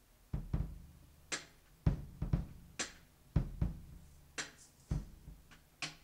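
A drum kit playing a steady rock beat on its own: kick-drum thuds with a sharper snare hit about every second and a half, starting about a third of a second in.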